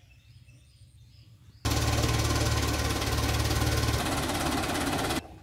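A JCB backhoe loader's diesel engine running hard and loud, with a rapid pulsing beat. It starts abruptly about a second and a half in, its heavy low rumble eases about four seconds in, and it cuts off abruptly just before the end.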